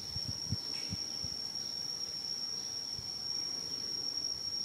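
Insects, crickets or cicadas, giving a steady high-pitched drone that holds on one tone without a break. A few soft low thumps come in the first second or so.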